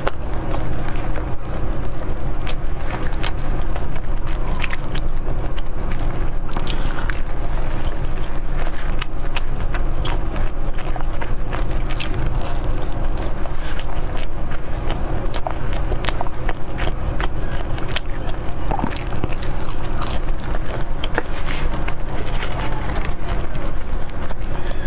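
Close-miked eating: steady chewing and biting with many small wet mouth clicks, over a steady low hum.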